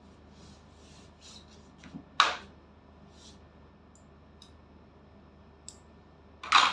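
Hair being handled with fingers and a comb: soft rubbing strokes and a few small clicks. Two much louder sudden rustles or knocks come about two seconds in and near the end.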